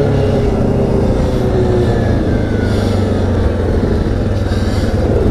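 Yamaha Grizzly 700 ATV's single-cylinder engine running steadily while the quad is ridden, heard from the rider's seat.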